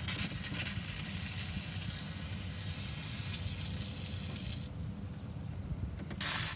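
Steam hissing from a small monotube steam generator and steeple compound engine, cutting off suddenly about two-thirds of the way through, then one short, louder burst of hiss near the end. A low steady rumble runs underneath.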